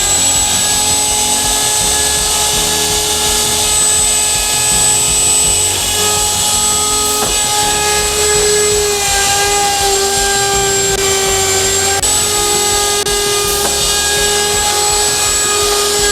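Router motor on a Norfield 350H hinge routing station running at full speed with a steady high whine, after spinning up just before. The pitch dips slightly a couple of times as the bit takes load cutting wood.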